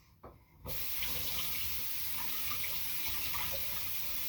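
Water running steadily, starting abruptly under a second in.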